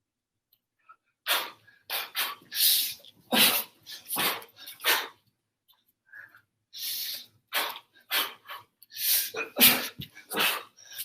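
Short, sharp forceful exhalations, the breath pushed out with each punch or kick in kickboxing drills. They come in two runs of quick bursts, a couple a second, with a pause of about two seconds between.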